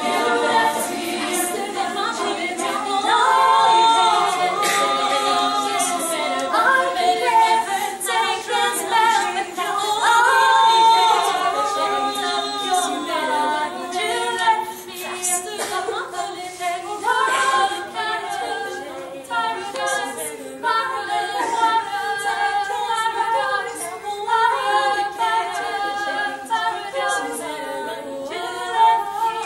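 Women's choir singing a cappella in close harmony, several voices moving together through sustained chords.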